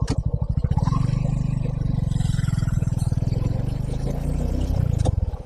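Suzuki V-Strom SX 250's single-cylinder engine pulling away, its firing pulses speeding up in the first second as the bike accelerates, then running steadily under way, with a brief drop near the end.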